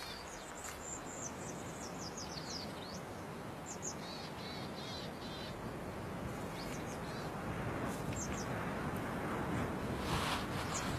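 Small birds chirping in short high, falling notes, quick runs of them in the first few seconds and scattered ones after, over a steady outdoor hiss.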